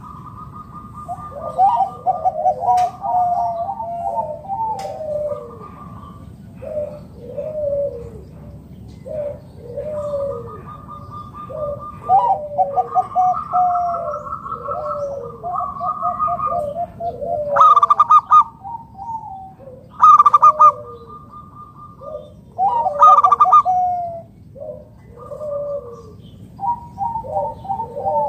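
Zebra dove (local perkutut) cooing: repeated phrases of short, high, even notes running into falling, rolling coos, again and again. The loudest phrases come about two-thirds of the way through.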